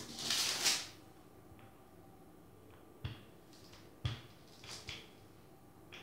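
Kitchen handling noises while pastry dough is being laid out: a short rustle at the start, then a few light knocks and clicks spread over the rest.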